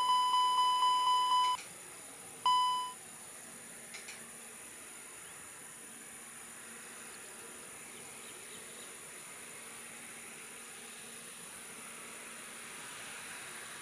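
An electronic beep, a pitched tone held for about two seconds with a rapid flutter, then a second short beep. Under it runs a steady high-pitched hiss.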